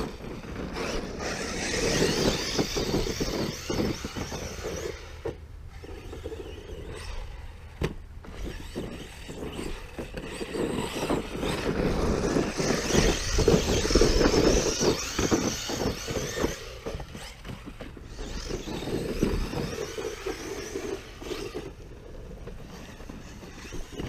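Arrma Notorious 6S RC stunt truck's brushless electric drivetrain running hard in repeated surges, its tires spinning and spraying loose dirt with short crunching hits, as it climbs a steep dirt pile.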